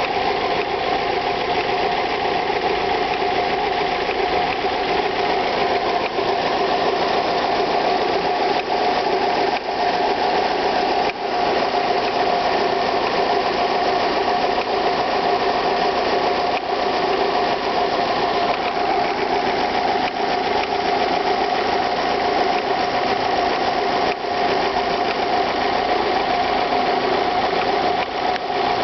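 Alfa Romeo 156 1.8 Twin Spark four-cylinder engine running steadily at warm temperature, with a fast ticking over the engine note that only shows up once the engine is warm.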